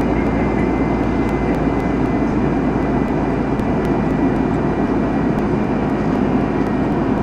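Steady cabin noise inside an Airbus A320-200 during descent: the even rush of the engines and airflow heard through the cabin.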